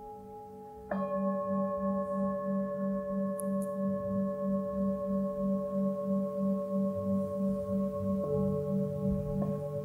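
Singing bowls struck and left to ring: a fresh strike about a second in, its low tone pulsing about three times a second as it rings on, and another bowl tone coming in near the end.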